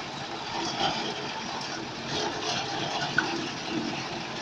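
Small engine of a walk-behind self-propelled reaper running steadily as the machine is driven forward, with one brief sharp click about three seconds in.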